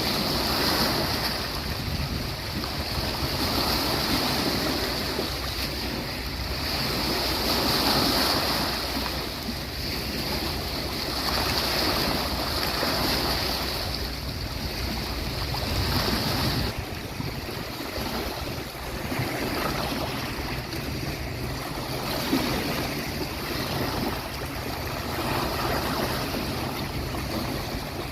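Sea waves washing onto a beach, the surf swelling and falling back about every four seconds. A steady high hiss runs with it and cuts off suddenly a little past halfway.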